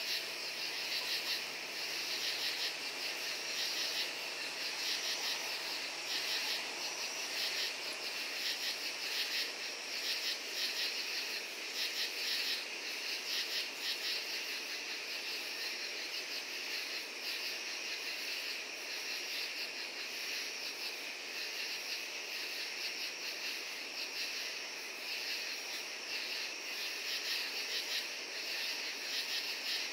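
Night chorus of crickets and katydids: many insects calling at once in a dense, steady, pulsing trill.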